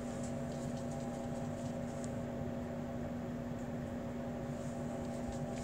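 Steady machine hum with a few steady tones underneath, the background noise of a small room.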